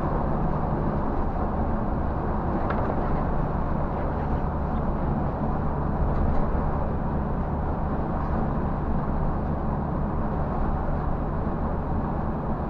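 Scania bus cruising on a highway, heard from inside the driver's cab: a steady low engine drone mixed with road and tyre noise.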